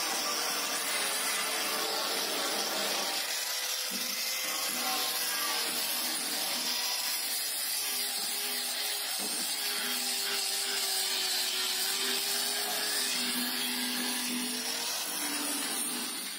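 Small electric angle grinder running against the steel side panel of a tractor trolley, scouring off old paint and rust. It makes a steady motor whine, its pitch wavering a little as the wheel is pressed in, under a harsh gritty hiss from the disc on the metal. It cuts off at the very end.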